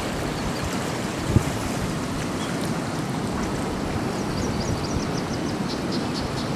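Flowing river water rushing steadily, with wind. A quick run of high chirps comes about four to six seconds in.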